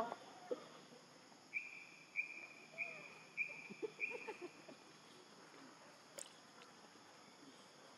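A bird calling a run of five short, even whistled notes on one pitch, evenly spaced, over quiet forest background, followed a little later by a single sharp click.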